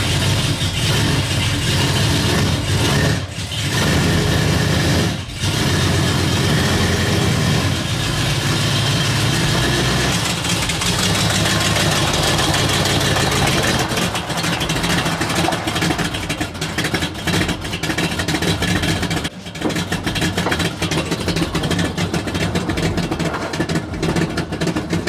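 The V8 engine of a 1978 Chrysler New Yorker running, mostly idling, as the car pulls away under light throttle.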